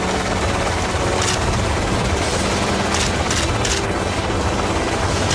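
Steady helicopter engine and rotor noise, with a few sharp gunshots, three of them in quick succession a little past the middle.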